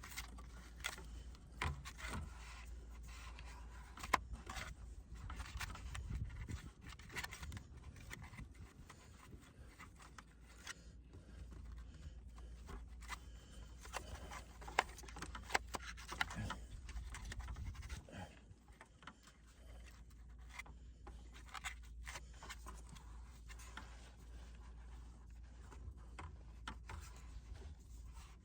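Irregular scraping, rustling and light knocks from a person moving around and handling things at close range.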